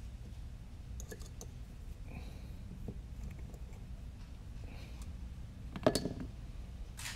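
Small clicks and taps from handling a Caddx Vista video transmitter module and a precision screwdriver on a silicone work mat while opening its case. There are a few faint ticks, then a sharper, louder clack about six seconds in and another click near the end.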